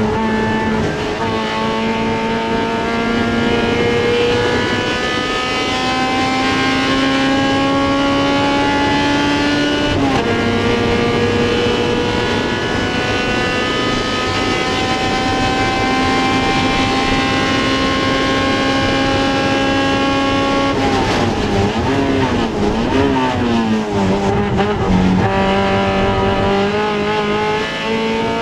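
Honda CRX race car's four-cylinder engine at racing speed, its pitch climbing steadily, dropping at an upshift about ten seconds in, then holding level. Near the end the revs waver up and down through a braking and downshifting stretch before climbing again under acceleration.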